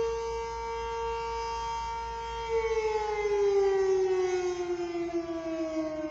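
Civil defense tornado siren sounding its wail. The tone holds high for about two and a half seconds, then slides steadily down in pitch, its level wavering as it falls.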